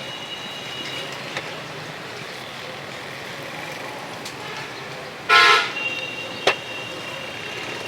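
Street traffic noise with a vehicle horn giving one short toot about five seconds in, the loudest sound; a sharp click follows about a second later.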